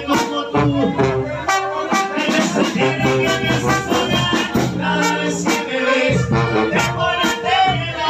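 Latin music with a man singing into a microphone over a steady beat with shaker-like percussion.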